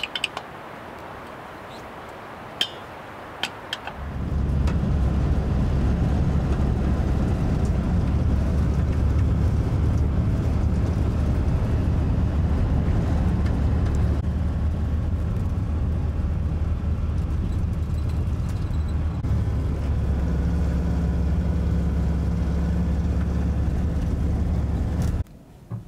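A few light clinks of tools at a wheel. About four seconds in, the steady low drone of a VW Type 2 bus's air-cooled flat-four engine and road noise, heard from inside the cab while driving. It cuts off suddenly near the end.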